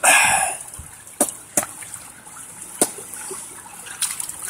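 Shallow pond water splashing briefly as a hand reaches in for stones, followed by four sharp clicks spread over the next few seconds, over a faint trickle of water.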